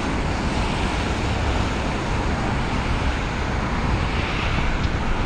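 Steady, even rumble of road traffic.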